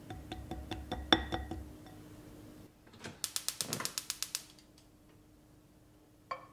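A whisk tapping and scraping through thick batter in a glass bowl. Then a gas hob's igniter clicks rapidly, about ten clicks a second for about a second, as the burner lights with a brief rush of gas. A short clunk near the end.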